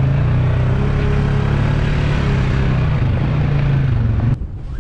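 ATV (quad) engine running steadily under way, heard from on the machine itself; the sound drops away suddenly about four seconds in.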